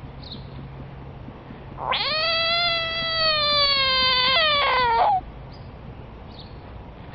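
A frog's distress scream, a threat-defence call that sounds like a cat's meow: one long cry of about three seconds that slowly falls in pitch, dropping suddenly near the end before cutting off.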